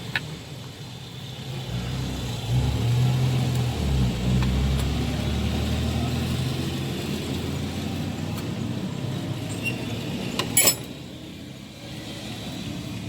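A motor vehicle's engine running nearby, swelling about two seconds in and easing off over the following seconds. A sharp click comes near the end.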